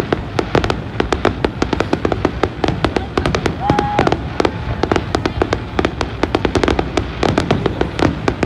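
Fireworks going off in a rapid, dense string of sharp crackling pops, several a second, with a short steady tone about four seconds in.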